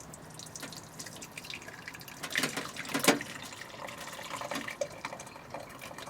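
Cooked cherry plum cordial mixture poured from a saucepan into a sieve over a jug: liquid splashing and dripping, with an irregular patter of small knocks, the loudest about three seconds in.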